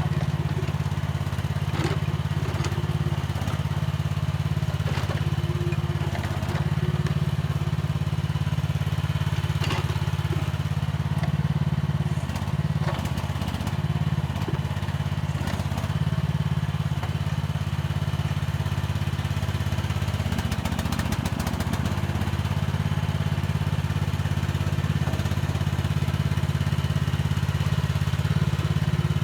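Mini excavator's engine running steadily under work, with scattered knocks and clatter as the machine digs and scrapes soil.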